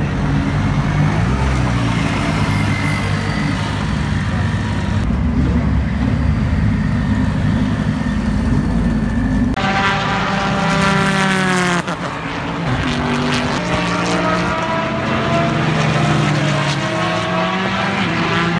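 Mazda SKYACTIV-D 2.2-litre turbodiesel four-cylinder in the SpeedSource Mazda prototype race car, first a low rumble as the car rolls slowly. About ten seconds in, the engine note falls for about two seconds as the car slows through a corner, then climbs steadily as it accelerates away.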